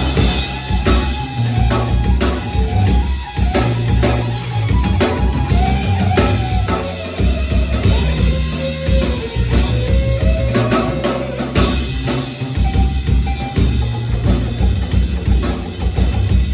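Live band playing through a PA: a drum kit keeps a steady beat under a bass line, with a wavering melodic line on top.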